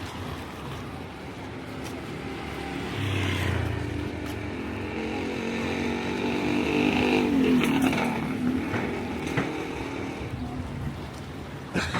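Street traffic: a motor vehicle's engine grows louder, passes close about two-thirds of the way through, then fades, with a few sharp clicks near the end.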